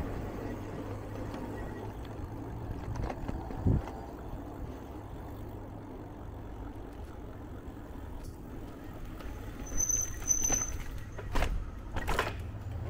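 Low rumble of wind and rolling noise on a moving bicycle-mounted camera, with one sharp thump about a third of the way in. Near the end come two short high-pitched squeaks, followed by a couple of louder knocks.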